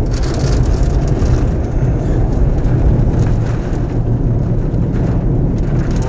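Strong tornado wind rushing past the microphone as a loud, steady, deep rumble with no pitched tone.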